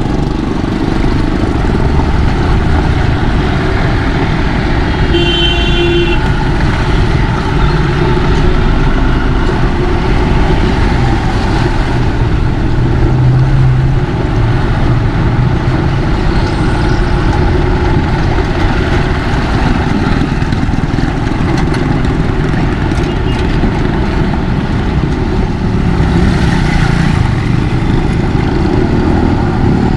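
Motorcycle engine running steadily while riding in traffic, with road and traffic noise throughout. A vehicle horn toots briefly about five seconds in.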